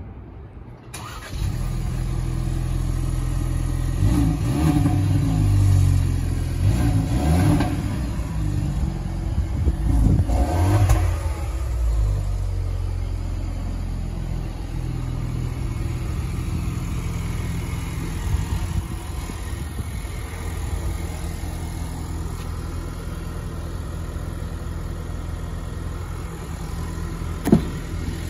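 Ford Bronco's 2.3-litre EcoBoost four-cylinder cold-starting: the engine catches about a second in, revs up and down three times, then settles into a steady idle. A sharp knock sounds near the end.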